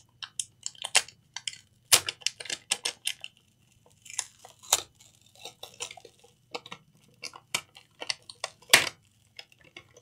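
Irregular light clicks and clinks of small hard objects being handled, with sharper taps about two seconds in and again near the end, over a faint steady hum.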